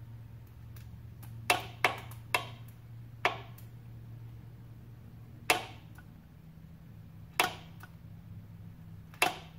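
Sharp clicks, seven in uneven succession, as a jump wire is tapped again and again to energize a carbureted outboard's choke solenoid. The plunger is sluggish and takes several taps before it pulls the choke closed.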